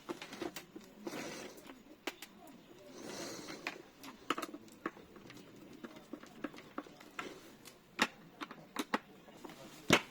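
Irregular small clicks and knocks of metal lock hardware being handled and fitted on a door, with a few soft rustles in the first few seconds.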